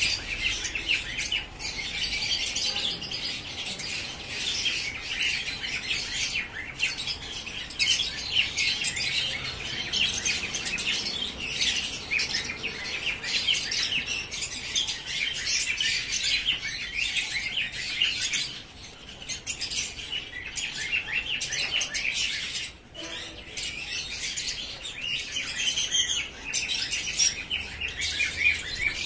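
Steady twittering of small birds, many short high chirps overlapping almost without pause, dropping away briefly twice.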